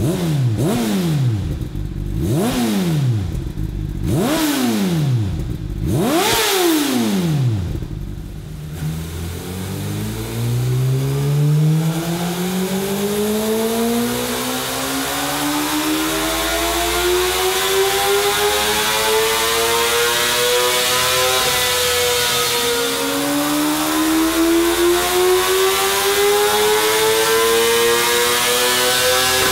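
Honda CBR600RR's inline-four revving through an Akrapovic carbon-fibre slip-on exhaust. It gives four quick throttle blips about two seconds apart, each rising and falling sharply. Then the revs climb steadily for about twelve seconds, drop briefly, and climb again.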